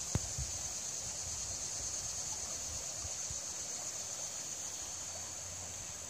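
Steady rush of a babbling brook, with a constant high-pitched hiss over it. A single light knock comes just after the start.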